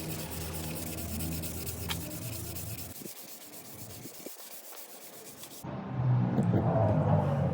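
Sandpaper rubbing on wood in a scratchy back-and-forth haze. About three-quarters of the way in it cuts to a louder, lower steady hum.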